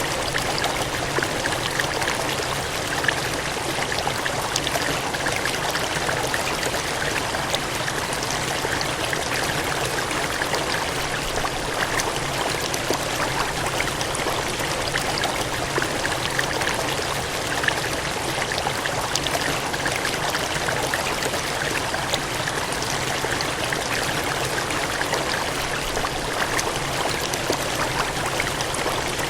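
Water gushing and cascading steadily, a dense even rush with small splashes throughout.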